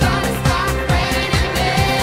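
Upbeat dance-pop music with a steady kick drum, about two beats a second.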